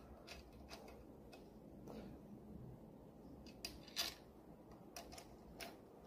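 Faint, irregular small clicks of an Allen key turning in the clamp screws of a handlebar kill switch, the loudest about four seconds in.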